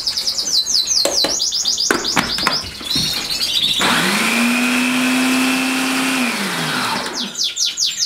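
Electric food processor motor spinning up, running steadily for about two and a half seconds, then winding down as it mixes dry canary egg food. Canaries sing in quick high chirps before the motor starts and again as it stops.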